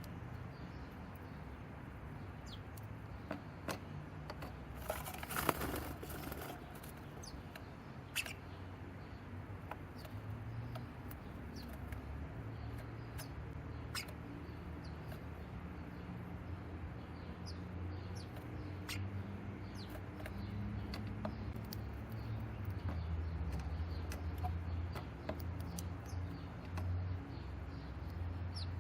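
Small garden birds moving about in a cat house: scattered light taps and scratches, with a brief flutter of wings about five seconds in, over a low steady outdoor rumble.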